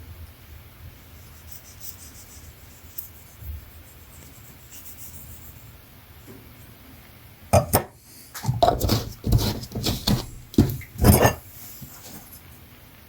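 Small hard objects handled on a workbench: a quiet stretch, then from about seven and a half seconds in, a burst of sharp clicks, knocks and rubbing clatter that lasts about four seconds.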